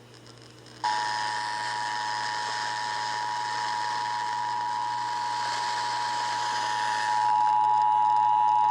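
Emergency Alert System attention signal, two steady tones sounding together in one harsh, unbroken chord. It starts about a second in and holds unchanged, a little louder near the end. It is the alert tone that opens an emergency alert broadcast, here a required monthly test.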